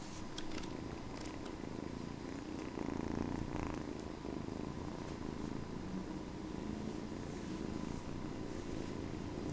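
Continuous fast typing on Gazzew Boba U4 silent tactile switches in an Epomaker GK68XS keyboard: muffled, dampened keystrokes that blur into a low, steady patter with hardly any sharp clicks.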